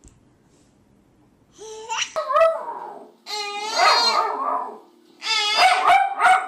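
A dog vocalising in three long, drawn-out whining howls with the pitch bending up and down, each lasting over a second.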